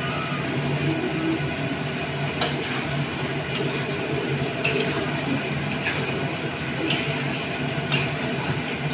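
Spatula stirring chicken curry in an aluminium kadai, with several sharp knocks of the spatula against the metal pan from about two seconds in, over a steady background hum.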